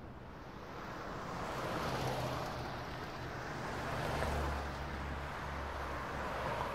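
Road traffic: passing motor vehicles, a steady rumble of engines and tyre noise that swells and eases a few times.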